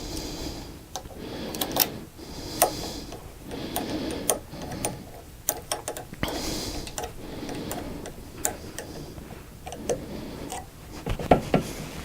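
Irregular sharp metallic clicks and ticks of hand tools and parts being handled on the mill's Z-axis slide assembly, with soft rushing swells between them.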